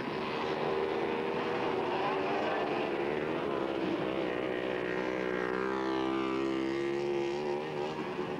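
Dirt bike engines revving hard as the bikes race, their pitch wavering up and down with the throttle. About six seconds in, one engine's pitch falls steadily.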